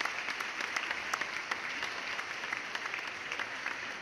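Crowd applauding, many hands clapping irregularly, slowly fading.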